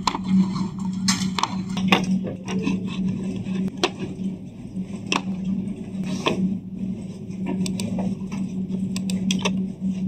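Computer keyboard keys clicking in short irregular taps, with a cluster of quicker taps near the end, over a steady low hum.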